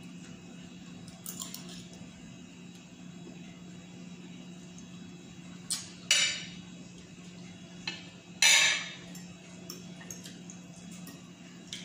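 Metal spoon and fork clinking and scraping against a ceramic plate of rice while eating: a handful of separate clinks, the loudest about two-thirds of the way through, over a steady low hum.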